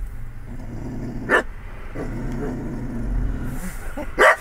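Pet dog barking sharply twice, once about a second in and again louder near the end, with low growling in between, aimed at a Chick-fil-A cow outside the car.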